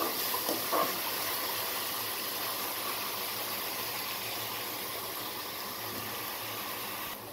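Chopped onions and green chillies sizzling steadily as they fry in hot oil in a kadai, with a few scrapes of a steel ladle stirring them in the first second.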